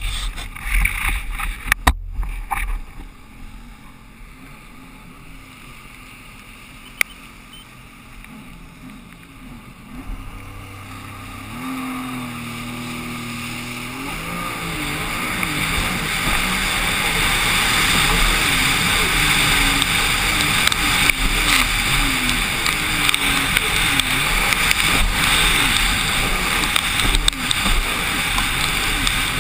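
Knocks from the helmet-mounted camera being handled, then a Sea-Doo RXT-X 260 RS personal watercraft's supercharged three-cylinder engine comes in about ten seconds in. It builds as the machine accelerates away, then runs at speed over choppy water, its pitch rising and falling with wind and spray hiss on the microphone.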